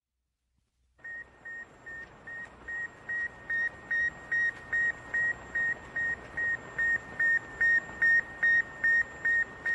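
Sputnik 1's radio signal: a steady train of short, high beeps, about two and a half a second, over a faint hiss. It starts about a second in and grows louder.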